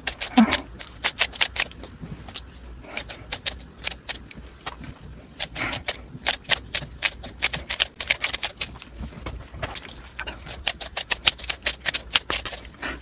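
Kitchen scissors snipping through a whole leaf of spicy cabbage kimchi in quick cuts: runs of sharp clicks in several bursts, with short pauses between.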